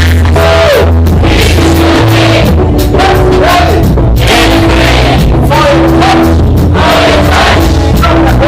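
Loud live church praise music with a steady drum beat, heavy bass and sustained keyboard chords, with some singing.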